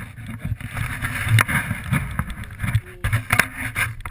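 Snowboard riding through powder snow: the board hisses and scrapes unevenly through the snow while wind buffets the microphone, with a few sharp knocks.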